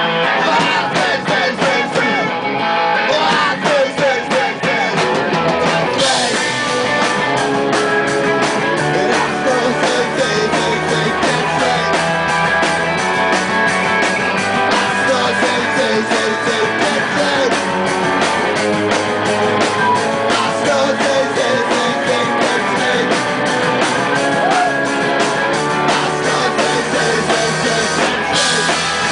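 Live rock band playing loudly: electric guitars, bass, drums and vocals, with the drums' cymbals coming in strongly about six seconds in.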